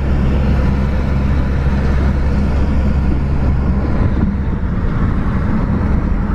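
Road and engine noise inside a moving taxi: a steady low rumble with tyre hiss.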